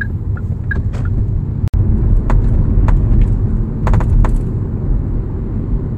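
Steady road and tyre rumble inside a moving car's cabin, with scattered short clicks and ticks, several in a cluster about four seconds in: the panoramic sunroof of a Kia K7 (Cadenza) rattling and creaking, the fault being shown.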